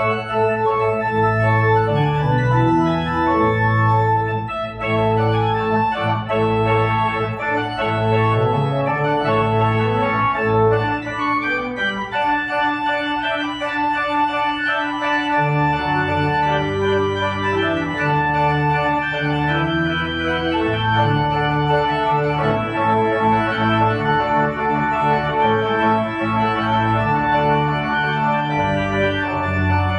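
Church organ postlude: sustained full chords over a moving bass line. The low bass notes drop out for a few seconds near the middle, then return.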